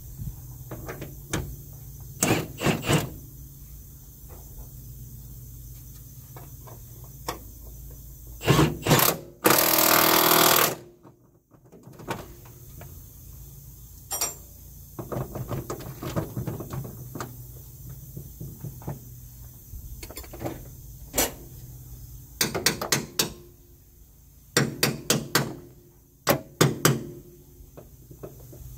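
Metal hand tools clinking and knocking in short irregular clusters, with one loud, harsh burst of noise about a second long roughly ten seconds in.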